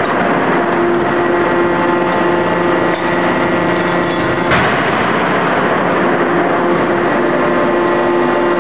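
C92K-200KJ CNC hydraulic die forging hammer striking once, a single sharp blow about halfway through, over a loud, steady machine hum with a constant tone.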